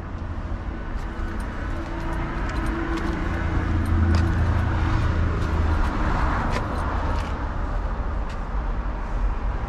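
A car engine running close by, its low hum swelling about midway and then easing a little, with a few light ticks over it.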